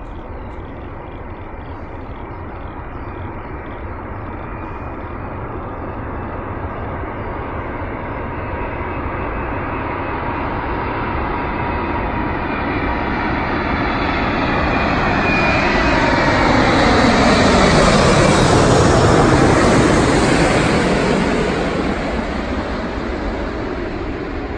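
Airbus A380-800's four jet engines growing steadily louder as the airliner approaches on landing, peaking about three quarters of the way through as it passes overhead. A whine then falls in pitch and the roar fades away.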